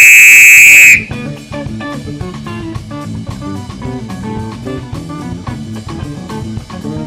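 A loud, shrill whistle blast held steady on one pitch for about a second and cut off sharply, then instrumental music with guitar, bass and drums.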